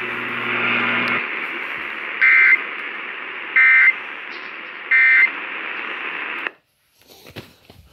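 Emergency Alert System end-of-message data bursts: three short, loud, warbling electronic squawks about 1.3 s apart, heard through a radio over steady static hiss. The audio then cuts off abruptly, with a few faint clicks after.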